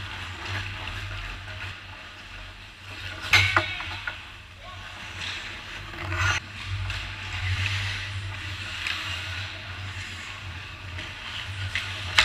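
Ice hockey play around the goal: skate blades scraping and carving the ice, with stick clacks and a sharp crack about three seconds in, the loudest moment, and another knock a little after six seconds. A steady low hum runs underneath.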